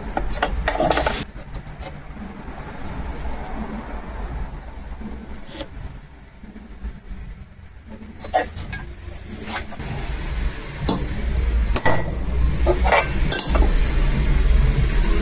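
Clinks, knocks and scraping of steel pieces being handled on a workbench, over a steady low hum; a hiss builds from about ten seconds in.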